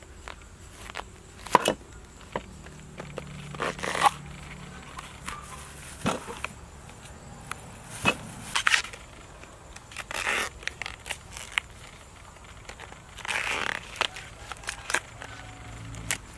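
A banana flower being handled and peeled: the stiff, waxy bracts give irregular sharp snaps and crackles as they are pulled back and broken off, with short stretches of rustling and tearing.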